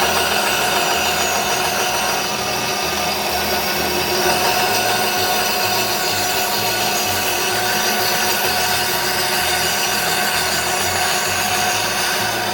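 Ryobi RBS904 benchtop bandsaw running steadily with a fine 14-teeth-per-inch blade, cutting through a piece of wood.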